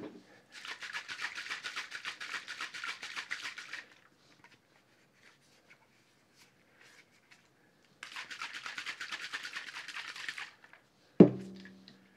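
A little water shaken hard inside a lidded Helimix Vortex shaker glass to rinse out leftover chocolate milk: two bouts of rapid sloshing and rattling a few seconds apart. A single sharp knock with a short ring comes near the end.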